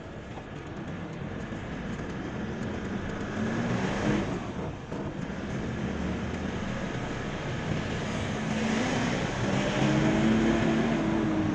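Car engine and tyre noise heard from inside a moving car. The engine pitch rises and falls twice as the car accelerates and eases off, growing louder toward the end.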